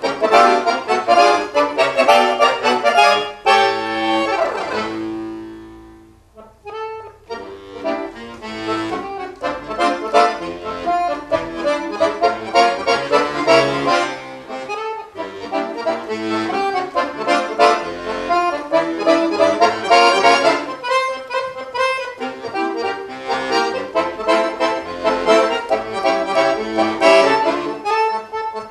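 Weltmeister piano accordion played solo in fast, dense runs and chords. About four seconds in, a downward slide leads into a chord that dies away to a brief pause, and then the fast playing picks up again.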